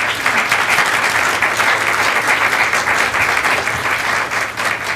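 Audience applauding, a dense, even clapping that starts suddenly and begins to thin out near the end.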